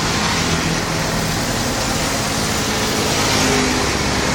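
Bus engine running steadily at low revs under an even hiss of noise.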